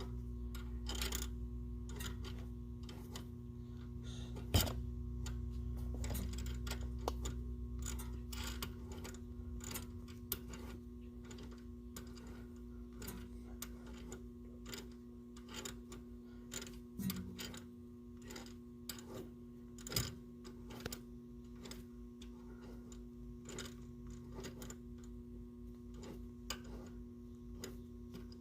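Light, irregular metallic clicks and ticks of hand tools turning a tie rod back onto its threads, about one or two a second, over a steady low hum.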